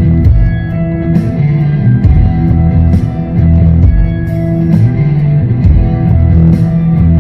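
Background rock music led by guitar and bass.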